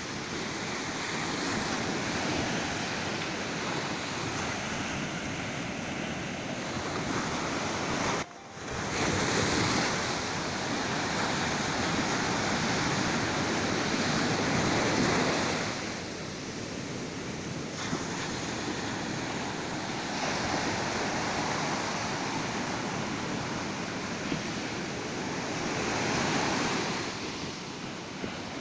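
Ocean surf on a beach: a continuous wash of breaking waves that swells and eases as sets come in, with some wind on the microphone. The sound drops out for a moment about eight seconds in.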